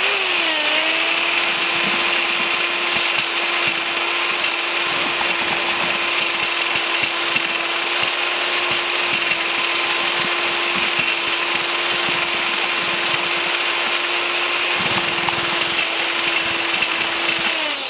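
Power drill spinning a mortar-mixer paddle through grain heads and straw in a plastic tub to thresh the grain out: a steady motor whine over a dense rustling hiss of stalks. The pitch drops slightly as the paddle takes the load just after it starts, and slides down as the drill stops at the end.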